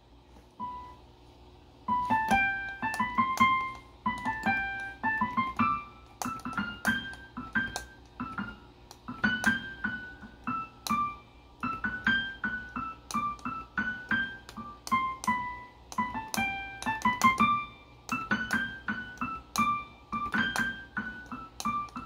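Casio WK-245 digital keyboard played by ear: a couple of single notes, then from about two seconds in a steady tune of melody notes over lower notes underneath, played a little rusty.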